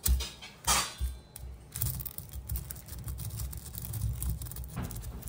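Whole spices being ground by hand into a paste on a grinding stone. Two knocks come in the first second, then from about two seconds in a steady, rough, low rubbing continues.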